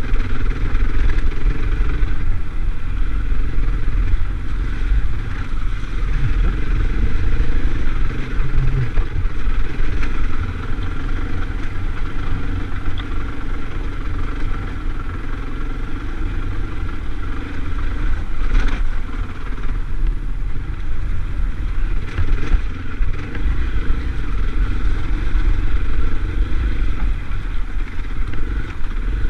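Off-road motorcycle engine running as the bike is ridden along a rutted dirt track, steady under part throttle. It eases off and runs quieter for several seconds about a third of the way in, and there is one brief sharp knock about two-thirds through.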